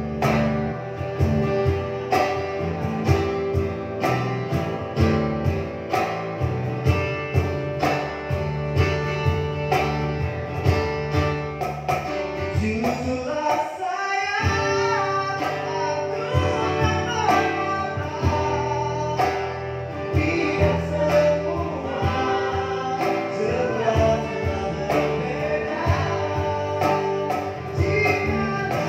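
Live acoustic band: acoustic guitar and a small plucked string instrument over a steady beat. A male voice comes in about halfway through on a rising note and sings the melody to the end.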